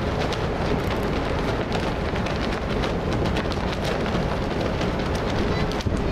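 Wind buffeting a camcorder microphone on the open deck of a moving cruise ship: a steady, loud rumble and crackle. It drops out briefly near the end.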